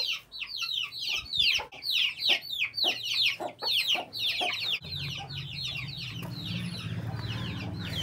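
Birds chirping fast and continuously, a string of short high notes that each fall in pitch, several a second. From a little past halfway a low steady hum sounds under them.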